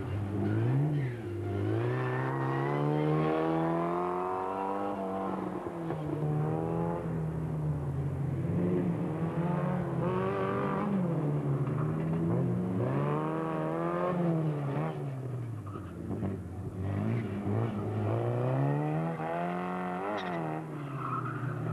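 Formula Ford single-seater engine revving hard and dropping back again and again, the pitch climbing and falling every two to three seconds as the car accelerates and brakes through the slalom gates.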